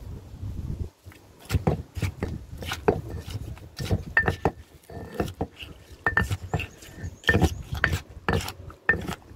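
Wooden pestle pounding and tossing shredded green papaya for som tam in a mortar: irregular knocks about twice a second, some with a short metallic clink from a spoon against the mortar. There is a soft rubbing in the first second before the knocking starts.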